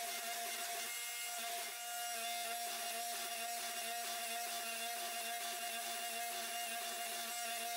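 Hydraulic forging press running, its pump motor giving a steady hum and whine over a hiss, while it squeezes a hot Damascus billet square.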